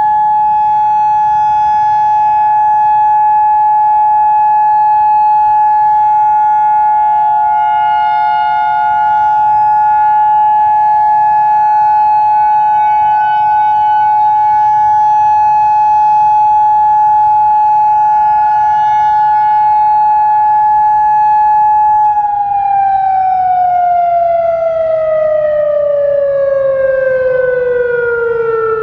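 Federal Signal Modulator 4016 outdoor warning siren sounding the steady alert tone, mixed with the wavering tones of more distant Federal Signal 2001 sirens. About seven seconds before the end, the pitch starts falling steadily as the alert signal winds down.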